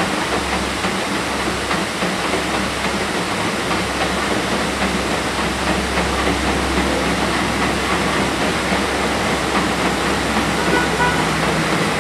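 Sri Lanka Railways S12 diesel multiple unit crossing a bridge, with a steady low engine drone, over the constant rush of a waterfall.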